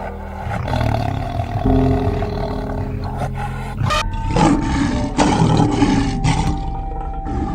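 An animal calling loudly several times in a row, the calls starting about halfway in, over steady background music.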